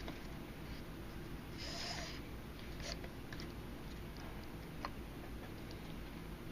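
Faint handling of paracord as it is threaded through a bracelet, with a few light clicks, over a low steady hum. A short breath through the nose comes about two seconds in.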